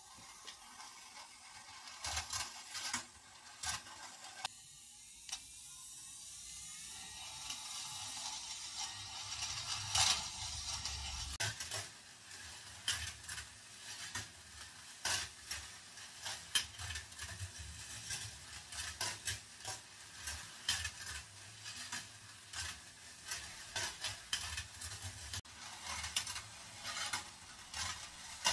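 10 mm metal balls rolling along the copper-wire tracks of a marble machine, a steady rolling hiss dotted with many sharp metallic clicks as the balls drop and strike the wire and one another. It gets louder over the first ten seconds or so, then keeps a steady level.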